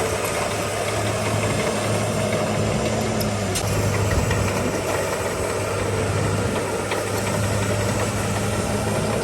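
Heavy diesel engine of earth-moving equipment running steadily at an even low pitch, with a few faint clinks over it.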